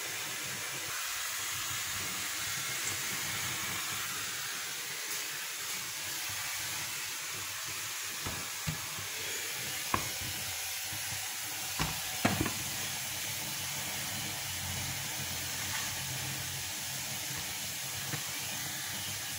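Steady hiss from a stovetop burner heating a griddle pan, with several light knocks of kitchenware on the wooden board between about eight and twelve seconds in.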